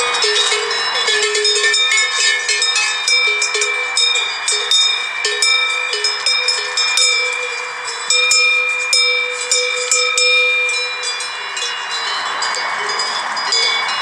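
Many metal bells clanking and ringing at once, struck irregularly at several different pitches, with each note ringing on after it is struck.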